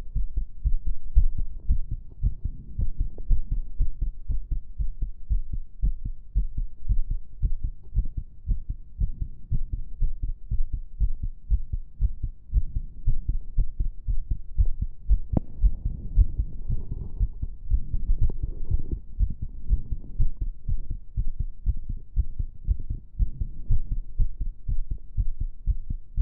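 A person's own heart beating in a steady, quick rhythm of low thumps, its rate raised by step-up exercise. A brief scratchy noise rides over the beats about 16 to 19 seconds in.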